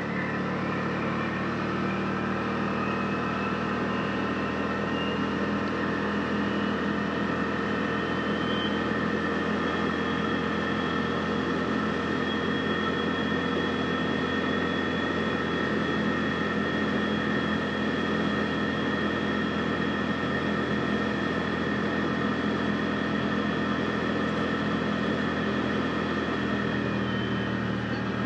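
Side-by-side UTV's engine running at a steady speed, an even drone with no revving.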